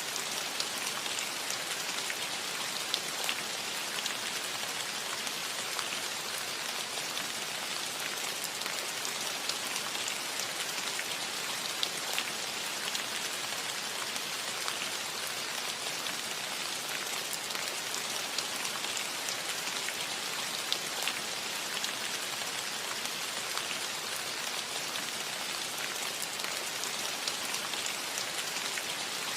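Steady light rain falling on a metal roof: an even hiss with many small drop ticks throughout.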